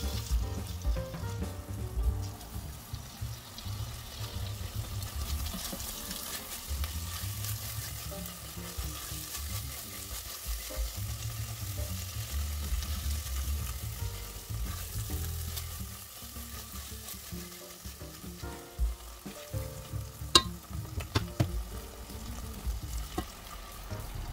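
Green lentils, onion and tomato paste sizzling as they fry in an enamel pot, with the spatula scraping and stirring through them and one sharp knock near the end. Water starts pouring into the pot at the very end.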